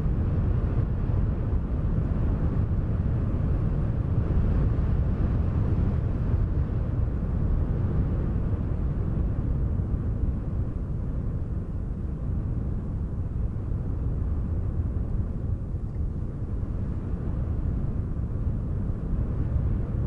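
Steady wind noise: a low, even rumble of wind with no distinct events, easing off a little about halfway through.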